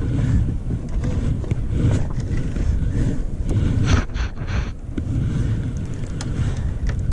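Low wind rumble on the microphone with scattered light knocks, clicks and rustles as a landed bass is handled onto a measuring board in a kayak, a cluster of them about four seconds in.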